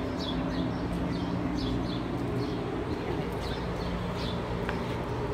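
A small bird chirping over and over, short high chirps that fall in pitch, often in quick pairs, over a steady low background hum.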